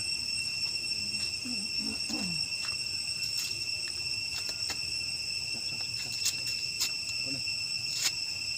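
Steady high-pitched insect chorus, with several sharp clicks, the loudest near the end.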